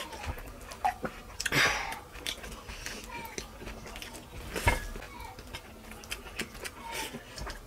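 Eating by hand at close range: wet mouth clicks, lip smacks and chewing, with fingers mixing rice and fish curry on the plates. A breathy burst comes about one and a half seconds in, and a sharp knock a little before five seconds.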